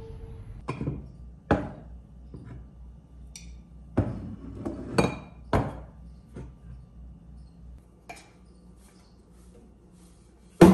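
Ceramic and glass kitchen items being handled and set down on a hard countertop, giving a string of separate sharp clinks and knocks a second or so apart, with the loudest knock near the end.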